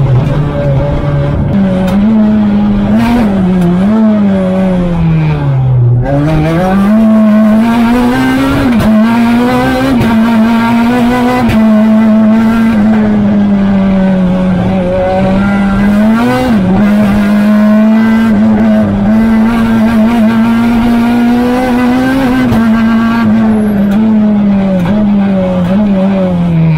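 Renault Clio R3 rally car's engine at full effort, heard from inside the cockpit and held high in the revs. Its pitch dips and climbs back a few times, most deeply about six seconds in, then falls steeply near the end.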